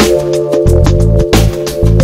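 Electronic music with held synth chords, a heavy bass line and a steady drum beat.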